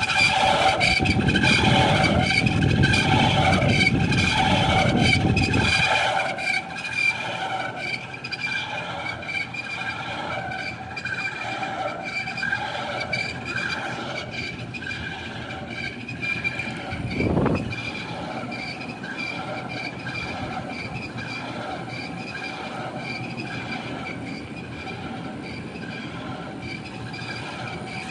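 Air conditioner outdoor unit's motor running with a steady, multi-toned whine: the noise problem the owner is recording. A heavy low rumble under it stops about six seconds in, and a brief whoosh comes about seventeen seconds in.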